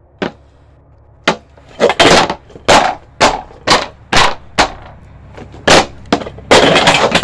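Snowboard hopping on a paved driveway: a string of about a dozen sharp slaps and clatters as the board's plastic base and edges hit the concrete and a metal kick scooter, followed near the end by about a second of rough scraping. The first second is quiet apart from one knock.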